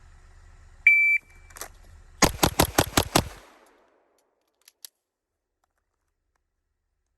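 A shot timer's start beep, then a pistol drawn from the holster and six rapid shots fired in about a second, evenly spaced: a Bill Drill. The last shot falls about 2.3 s after the beep.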